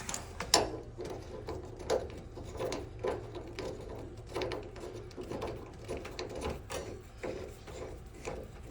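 Irregular small clicks, knocks and scrapes of a garden hose and its coupling being handled at a water heater's drain valve, over a steady low hum.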